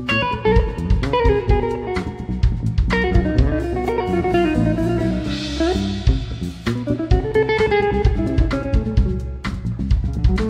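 Live instrumental trio of electric guitar, electric bass and drum kit playing in an odd meter: the guitar plays a lead line with bending, gliding notes over the bass and drums, with a cymbal wash about halfway through.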